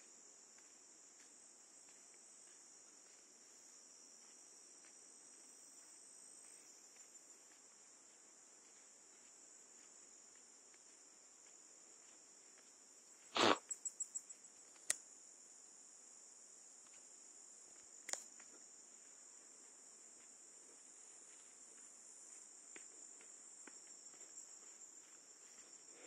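Faint, steady high-pitched chorus of insects in woodland. A few sharp knocks and clicks come about halfway through.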